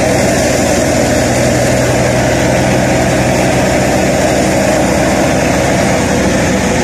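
Tractor-driven wheat thresher running steadily: a loud, continuous engine-and-machine drone with no change in pace.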